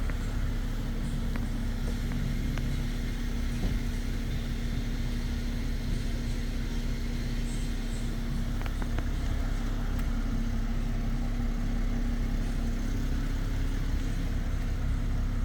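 2022 Jeep Wrangler Unlimited Willys running with a steady low rumble and a constant hum.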